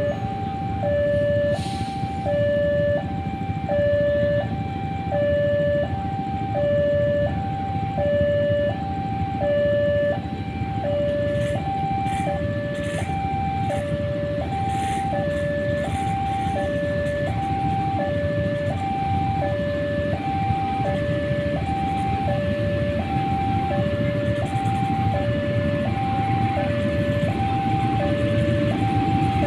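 Two-tone electronic railway warning alarm, a higher and a lower tone alternating steadily, each about half a second. It sounds over the continuous low rumble of a train at the station.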